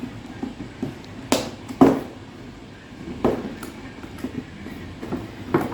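Packing tape being peeled off a cardboard toy box, with several sharp knocks and taps of handling, the loudest about two seconds in.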